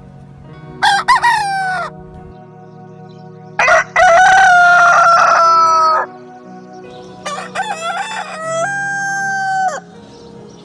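A rooster crowing three times, the middle crow the longest, each ending in a long held note.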